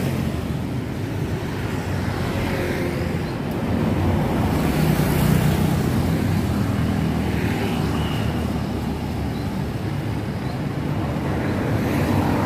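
Road traffic: motor vehicle engines running past over a steady rumble, with one growing louder about four to six seconds in as it passes close.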